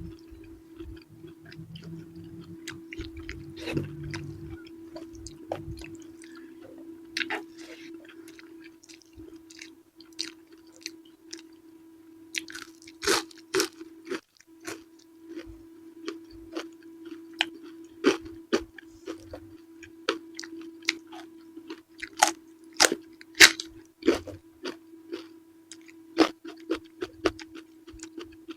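Close-miked chewing and biting of purple eggplant with sambal, with many crisp crunches and wet mouth clicks that grow louder in the second half. A steady low hum runs underneath.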